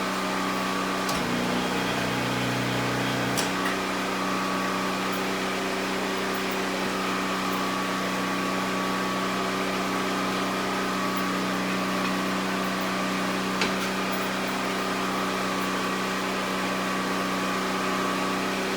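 Steady mechanical hum of workshop machinery. About a second in, a click starts a deeper motor hum from the tire changer, which runs about two seconds and stops with another click. A single sharp click comes near the end.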